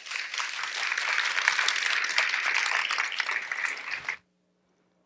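Audience applauding, a dense clatter of many hands clapping that cuts off abruptly about four seconds in.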